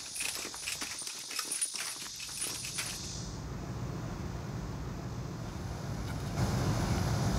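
A squad of soldiers marching off, boots and carried gear clattering in a quick, uneven run of knocks and rattles. About three seconds in this gives way to a steady low rumble, which gets louder near the end.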